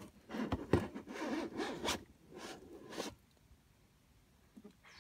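A plastic-wrapped bicycle crankset being pulled out of its box packaging: several scraping, rustling swishes of plastic and cardboard over about three seconds.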